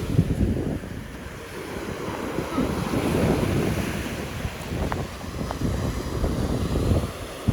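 Gulf surf washing onto the beach with wind buffeting the microphone, a rough, surging rush. A few faint ticks come about five seconds in.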